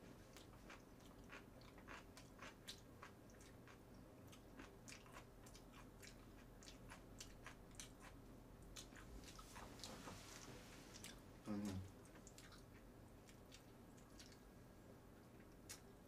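Faint, close mouth sounds of a person chewing food, with many soft clicks from the mouth. A short low hum of the voice stands out about two-thirds of the way through.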